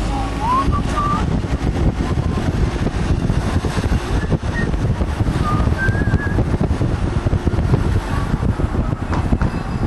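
Wind and road rumble buffeting the microphone in a moving car, a loud, uneven low rumble throughout. Short, faint high melodic notes come through now and then above it.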